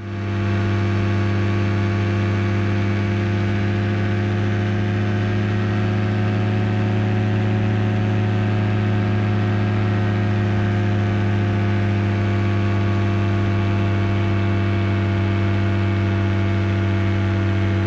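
Freshly rebuilt Rotax aircraft engine running steadily in cruise flight: a constant drone with a strong low hum and its overtones, unchanging in pitch.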